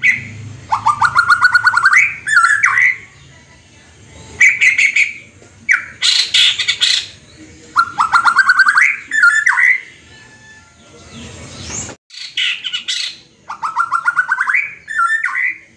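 White-rumped shama (murai batu) singing and mimicking the cackle of a hen that has just laid an egg. Three times, a run of quick notes climbs in pitch and ends in higher calls, with shorter high chirping phrases between the runs.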